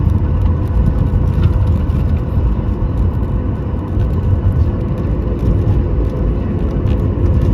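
Cabin noise aboard a Boeing 737 MAX 9 on the ground after landing: a loud, steady low rumble with a faint steady hum and a few light rattles.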